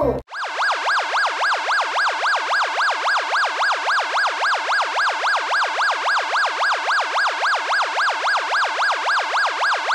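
Electronic siren in a fast yelp, its pitch sweeping up and down about four times a second at an even, unbroken level. It cuts in sharply a moment after the start.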